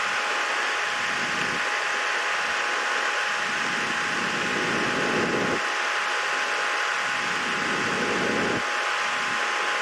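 Steady hiss with a thin, steady high hum underneath, like a small fan running. A lower rumble rises twice and drops away.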